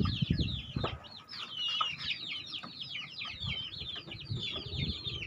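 Many birds chirping at once: rapid, overlapping, high-pitched falling chirps that go on without a break, with a few dull knocks near the start.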